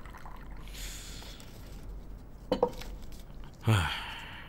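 Tea pouring softly, then a single clink of porcelain about two and a half seconds in. Near the end a man lets out a loud sigh that falls in pitch.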